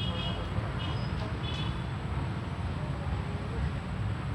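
Passing train: a steady low rumble, with a few short high chirps in the first second and a half.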